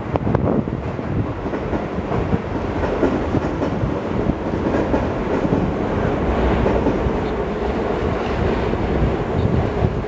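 A train running along the tracks, its wheels rumbling on the rails, with wind buffeting the microphone.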